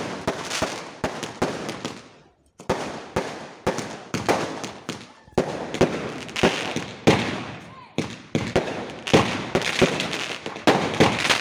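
Fireworks going off in rapid succession: a dense run of sharp bangs and crackles, several a second, with a brief lull about two seconds in.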